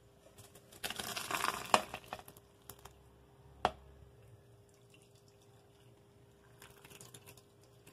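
Blended prawn-head stock being poured through a perforated metal strainer into a pot, splashing for about a second near the start, then trickling and dripping. One sharp metal clink about halfway through.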